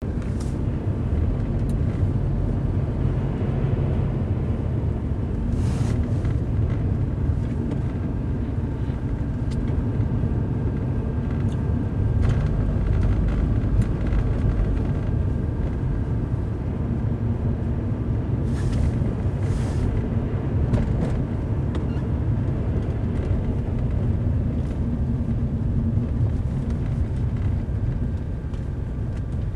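A car driving steadily along a road: a continuous low rumble of engine and tyres, with a few brief louder swishes, about six seconds in and twice around the two-thirds mark.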